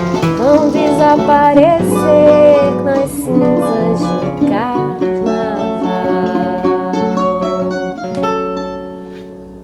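Music: acoustic guitar and other plucked strings playing the closing instrumental bars of a samba, fading out near the end.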